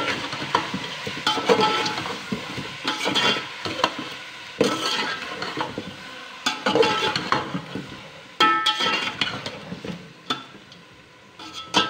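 Metal slotted spatula stirring and scraping chicken pieces coated in ginger-garlic paste around a metal pot, with irregular strokes that make the pot ring briefly, over the sizzle of the chicken frying in oil.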